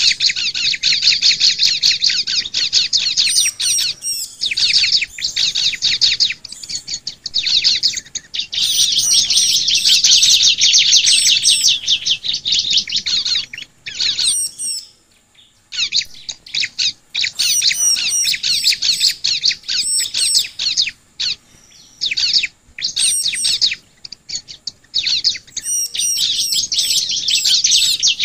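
Bar-winged prinia (ciblek) song: fast, high-pitched chattering runs with short breaks, and one pause about halfway through.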